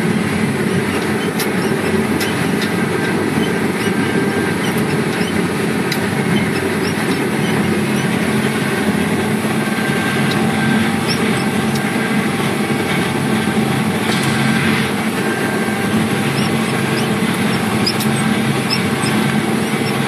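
John Deere 3520 sugar cane harvester running steadily while harvesting, heard from inside its cab as a constant engine and machinery drone, with scattered faint ticks.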